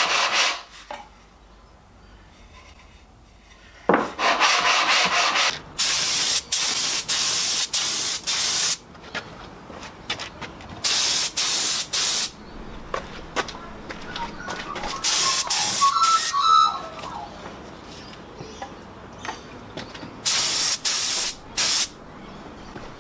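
Hand sanding on a sheet of sandpaper, rubbing strokes, briefly at the start. Then a compressed-air spray gun hissing in several bursts of one to three seconds with pauses between, spraying finish onto a wooden box.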